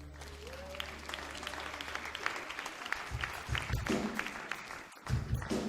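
Congregation clapping over a held low keyboard note; about three seconds in, the note drops out and a band's low drum beats come in as the music starts.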